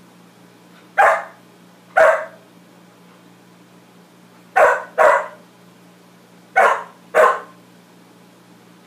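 A fluffy white dog barking six times in three pairs, each bark short and loud, at its own reflection.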